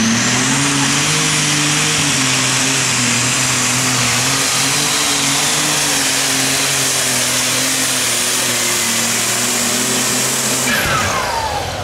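White 2-135 super stock pulling tractor running on alcohol, its engine at full throttle under load as it drags the weight-transfer sled. The pitch climbs at the launch and then holds steady. Near the end the engine lets off and winds down with a falling whine.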